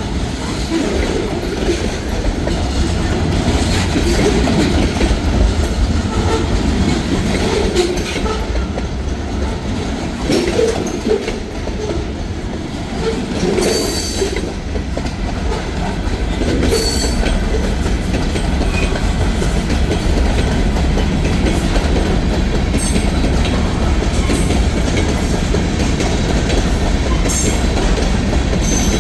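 Freight train cars rolling past with a steady rumble, wheels clicking over the rail joints.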